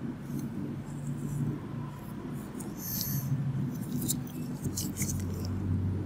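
Faint rustling and scraping from a gloved hand working cotton swabs and a metal extractor against skin, with a few short crackles about three and four seconds in, over a low steady hum.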